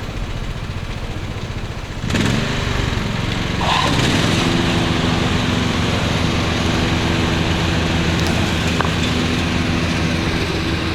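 Engine running steadily, revving up about two seconds in and again near four seconds, then holding at a higher, even pitch under load, as it powers the cable pull of a trenchless water line replacement.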